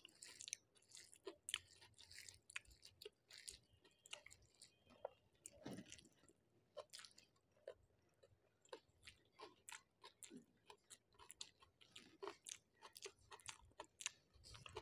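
Faint sounds of a person chewing a mouthful of rice with lote fish bharta, a run of small wet smacks and clicks of the lips and tongue at irregular intervals.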